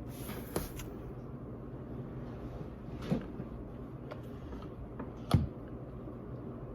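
Several short knocks and clicks of objects being handled, spread out, the loudest about five seconds in, over a steady low hum.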